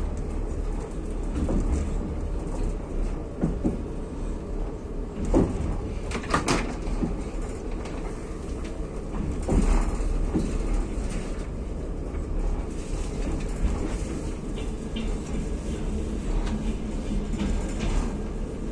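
Passenger train carriage running on the rails, heard from inside: a steady low rumble with a few sharp knocks from the wheels, the loudest about five, six and a half and nine and a half seconds in.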